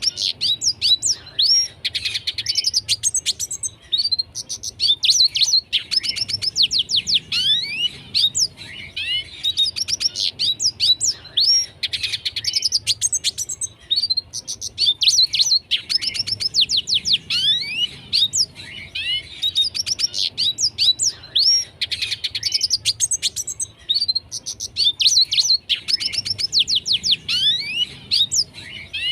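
Red siskin singing continuously: long runs of quick, high twittering notes and trills with rapid up- and down-sweeping whistles, phrase after phrase with only brief breaks.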